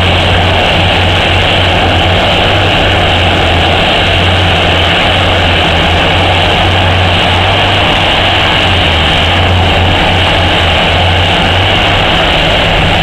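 O&K RH120-E hydraulic mining shovel running under power with a steady, heavy low drone that does not let up.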